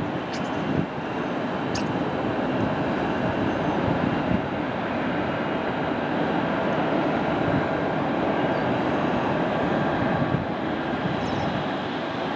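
Airbus A380 taxiing, its four jet engines at low taxi power: a steady rumble and hiss with a faint, steady high whine.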